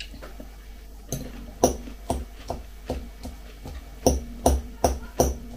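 Small metal fork clinking against a glass salad bowl: about ten sharp, ringing clinks roughly half a second apart, in two runs, as the salad is stirred and speared.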